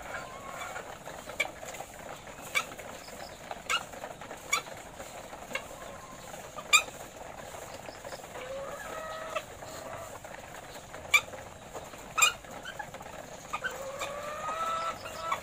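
Caged laying hens clucking, with a few drawn-out calls about halfway through and again near the end, among frequent sharp clicks and taps at the cages and feed troughs during feeding.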